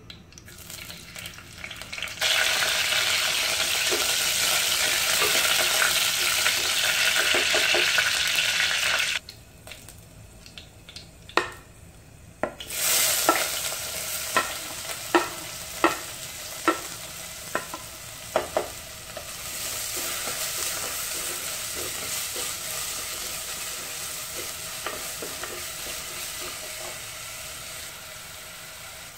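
Hot coconut oil sizzling loudly in a clay pot as chopped green chilli goes in, cutting off suddenly about nine seconds in. Chopped onions are then tipped in and fry with a steady sizzle, with a run of sharp knocks from the wooden spatula against the pot and plate as they are scraped in and stirred.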